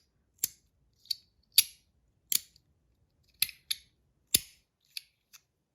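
Compoform Astronaut Coin, a titanium magnetic slider fidget, clicking as its slider snaps into the magnet positions on its track. About nine sharp clicks at uneven intervals.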